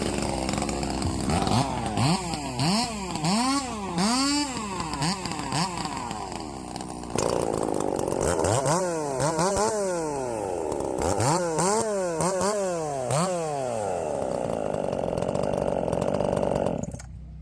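Race chainsaws being warmed up, their engines revved up and down again and again in quick blips. The revving drops away suddenly near the end.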